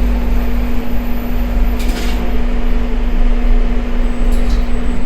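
Nippon Elevator Manufacturing elevator car travelling down: a steady hum with a constant low drone and a couple of faint ticks.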